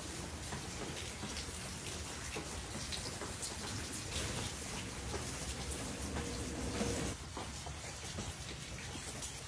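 Steady rain pattering: an even hiss with many scattered small drip ticks, easing slightly about seven seconds in.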